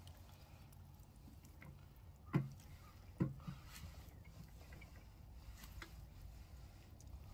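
Wet clothes being handled in a stainless-steel hand washtub, with faint sloshing and squishing of water. Two sharp knocks a little under a second apart, a couple of seconds in, are the loudest sounds.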